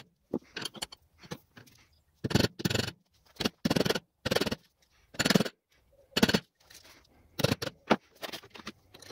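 A metal hand tool scraping inside a small machined metal turner's cube in a series of short, irregular strokes with brief pauses between them.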